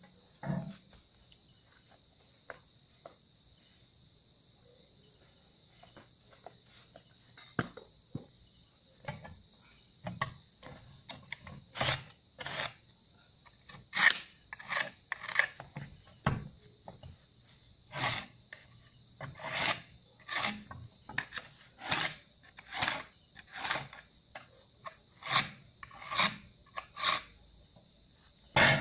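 Rasping scrapes of a hand tool worked against a hard tiled surface, sparse at first, then repeated strokes about once a second that get louder over the second half. A steady high insect chirr runs underneath.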